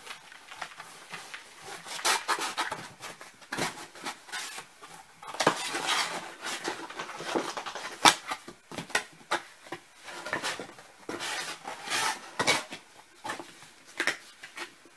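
A cardboard shipping box being folded into shape by hand: irregular scraping and creasing of the flaps, with sharp clicks and bursts of rustling.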